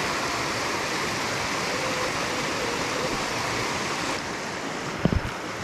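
Stream water rushing steadily over a shallow rocky riffle. A couple of brief low thumps about five seconds in.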